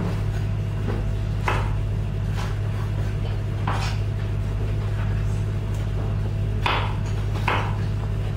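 A chef's knife cutting through produce on a wooden cutting board, a few separate knocks of the blade hitting the board, over a steady low hum.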